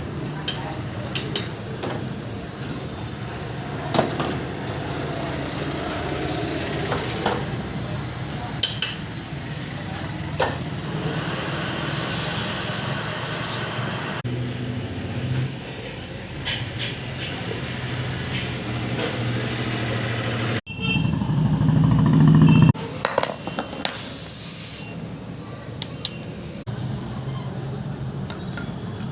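Metal lathe running with a steady low hum while metal parts and tools clink and tap against each other. The sound changes abruptly a few times, with a louder, deeper stretch about two-thirds of the way through.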